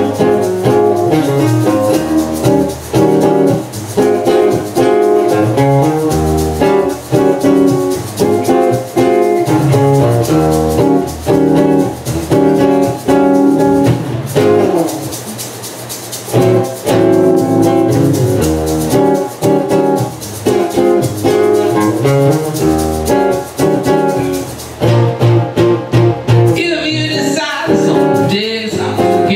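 Live acoustic band music: two acoustic guitars strumming and picking through an instrumental passage, thinning briefly about halfway through. Near the end a voice comes in over the guitars.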